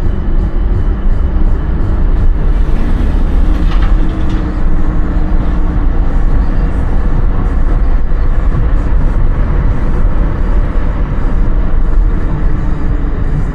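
Car driving along a road: a steady low rumble of road and engine noise, with music faintly under it.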